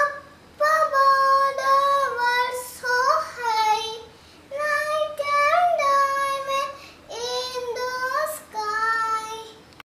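A young girl singing a nursery rhyme unaccompanied, in short phrases with brief pauses between them.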